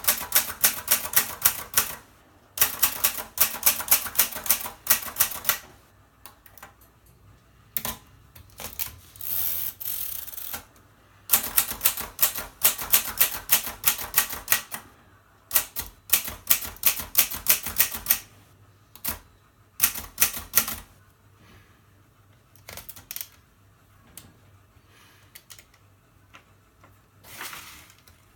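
Mercedes K45 manual portable typewriter being typed on in quick runs of sharp keystrokes, with short pauses between runs. About ten seconds in there is a brief rushing noise, and in the last third only a few scattered single strokes.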